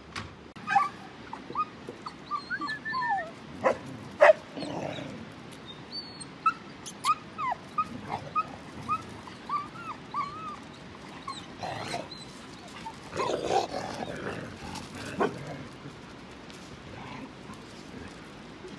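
Dogs whining and yelping in many short, high cries that rise and fall, with two sharp knocks about four seconds in and a few barks in the second half.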